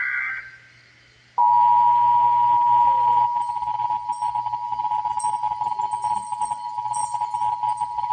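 A burst of Emergency Alert System SAME header data, a harsh digital screech, cuts off just after the start. About a second later the EAS two-tone attention signal comes on loud and holds steady as a single chord of two close pitches.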